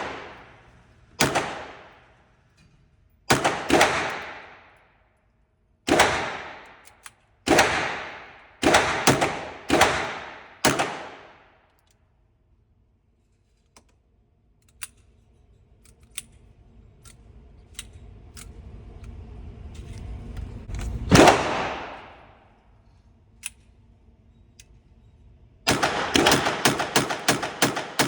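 Gunshots from a small firearm: a string of single shots about a second apart, a lone shot after a rising rushing noise, then a rapid string of about ten shots fired in quick succession near the end.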